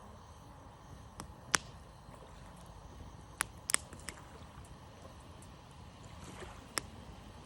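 Wood campfire crackling: sharp, irregular pops at uneven intervals over a faint steady background noise.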